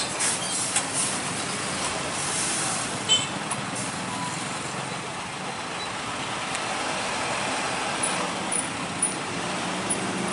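Isuzu Giga FVR truck's diesel engine running steadily as the truck creeps over a level crossing, mixed with road traffic noise and a few short clicks.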